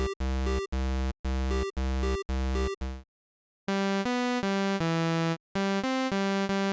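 8-bit chiptune synthesizer sounds. A single low note pulses about twice a second, stops about three seconds in, and after a short pause a run of stepped notes plays a short tune.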